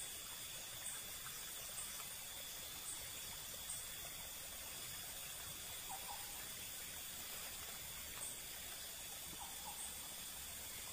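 Outdoor background ambience: a steady hiss, with faint short high-pitched chirps about once a second and a few faint lower calls.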